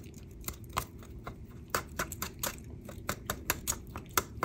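Plastic fork mashing canned whole sardines in a metal can. It clicks and taps against the can's sides and bottom in irregular strokes, about four a second.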